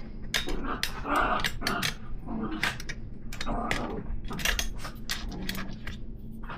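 A ratchet wrench clicking in quick strokes while turning the axle through the fork, mixed with rough growl-like groans.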